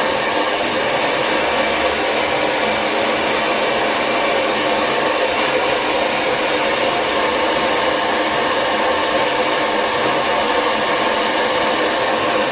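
Lange Soleil hair dryer blowing steadily at a constant speed, a continuous whooshing airflow with a faint whine.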